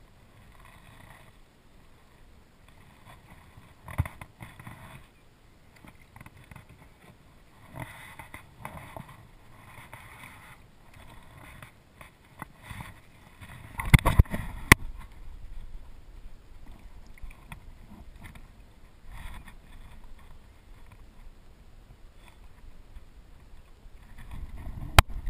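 Water sloshing against a plastic kayak hull as a redfish is handled and lowered over the side for release, with scattered knocks on the hull. A loud sudden thump comes about fourteen seconds in, and another just before the end.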